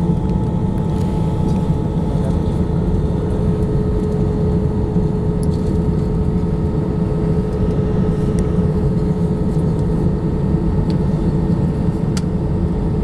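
Steady cabin noise inside an Airbus A321-211: a low rumble with a steady hum from its CFM56 engines running at an even power, with a few faint clicks.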